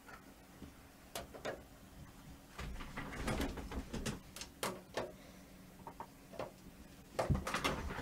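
Handling noise from fitting a plastic case fan into a steel PC case: irregular knocks, clicks and rattles, busiest from about three to five seconds in and again near the end.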